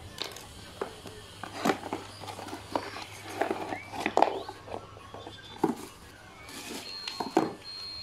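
Cardboard toy boxes and bubble-wrap packaging being handled, with scattered knocks, taps and plastic crinkling. Near the end a steady high-pitched beep starts.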